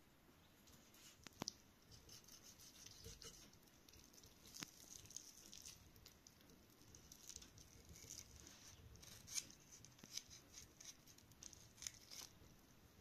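Faint, soft scraping and tearing of a small knife cutting and trimming raw chicken pieces by hand, with a few sharp ticks here and there.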